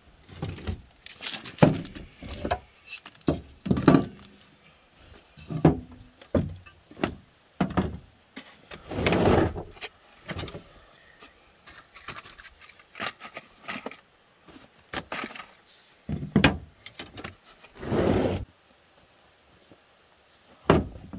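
Gear being handled on a pickup tailgate and in a wooden storage box: an irregular run of knocks and thuds, with a couple of longer rustling bursts.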